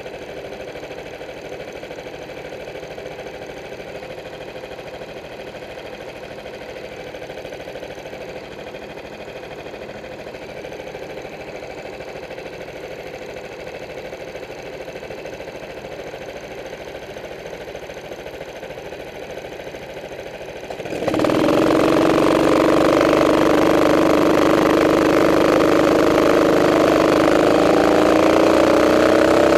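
Racing kart engines idling steadily, then about two-thirds of the way through the onboard kart's engine comes in suddenly much louder as it pulls away under throttle, its pitch rising and falling with the revs.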